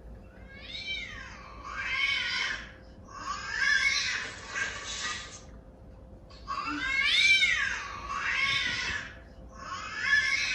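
A recorded cat sound being played back: a run of high, drawn-out meows that rise and fall in pitch, repeated as two nearly identical sequences about six seconds apart.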